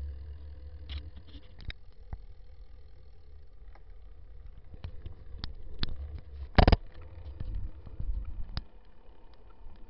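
Low wind and rolling rumble on a bicycle-mounted camera riding along a road, with scattered light clicks and rattles. One short, sharp knock about two-thirds of the way through is the loudest sound.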